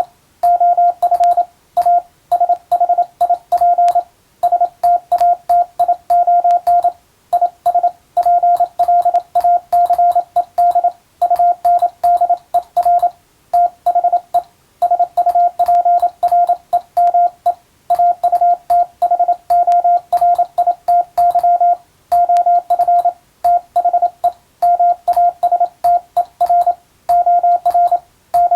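Morse code (CW) tone keyed on and off at one steady pitch: dits and dahs grouped into characters and words with short gaps, a faint click at each keying edge. This is code sent for Morse receiving practice.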